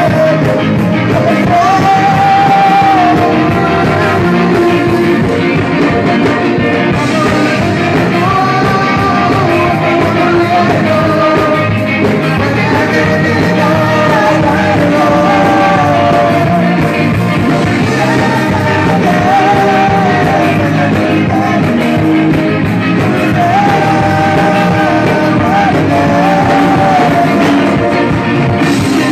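Live amplified band music with a man singing into a microphone, loud and continuous over the band.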